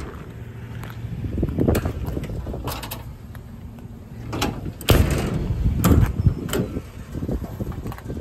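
Steel compartment door of a truck's utility service body being unlatched and swung open, with a series of metal clicks and clunks from the latch and door, the loudest about five to six and a half seconds in.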